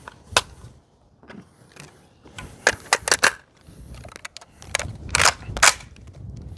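A series of sharp metallic clicks and clacks at an uneven pace, the loudest two about five seconds in.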